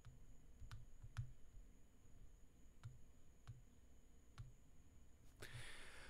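Faint, sparse clicks of a computer mouse, about six spread over several seconds, then a short breath out near the end.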